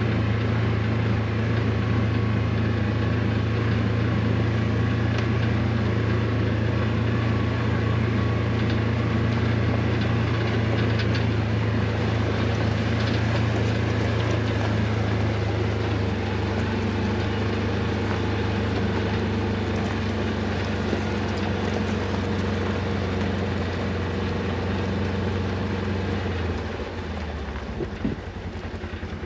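Engine running steadily at an even speed, then dropping to idle about 27 seconds in, where it turns into a rapid, even putter.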